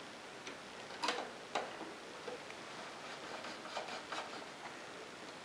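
A few faint, irregular plastic clicks and taps from an inkjet printer's casing and CISS ink tubing being handled, with two clearer clicks about a second and a second and a half in.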